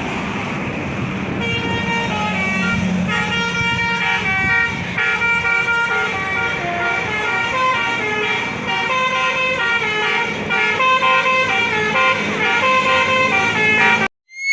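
A bus's Basuri 'telolet' multi-tone air horn playing a quick stepped melody over the low hum of the bus's engine. The tune cuts off suddenly near the end.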